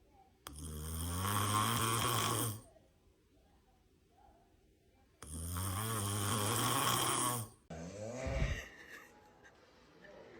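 A sleeping person snoring: two long, deep snores of about two seconds each, a few seconds apart, then a shorter, quieter breath with a falling pitch.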